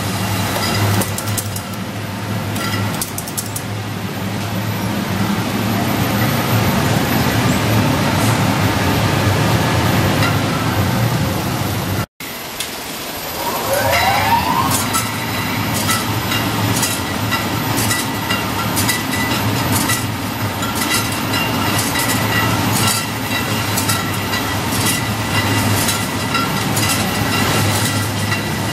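Case-packing machine for wine bottles running: a steady mechanical hum and rattle of conveyors, with frequent clicks and clacks from the mechanism. The sound cuts out for an instant about twelve seconds in, followed by a short rising whine.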